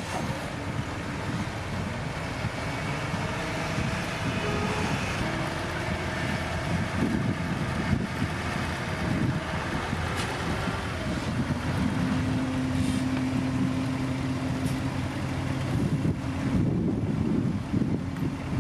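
Heavy diesel earthmoving machinery (bulldozers and dump trucks) running, with a low rumble and wind buffeting the microphone; in the second half a steady engine note rises out of the noise for a few seconds, then sinks back.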